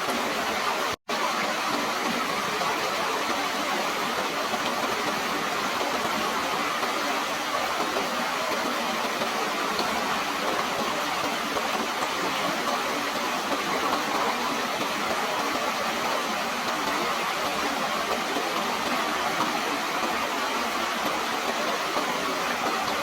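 Steady rushing of flowing water, an even noise without rhythm, which cuts out for an instant about a second in.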